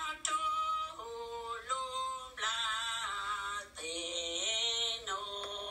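A solo voice singing in long held notes that slide up and down between pitches, in several short phrases.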